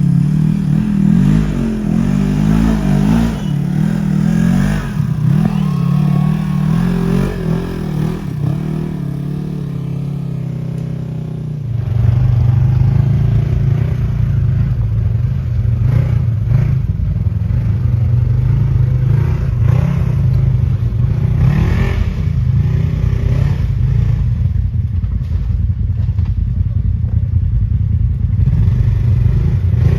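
Side-by-side UTV engine running, its pitch shifting a little as the throttle changes. About twelve seconds in, the sound changes abruptly to a lower, steadier engine drone.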